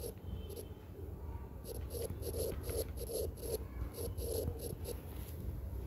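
Stylus writing on a tablet screen: a quick run of about a dozen short scratching taps as letters are written by hand, starting a couple of seconds in, over a low steady hum.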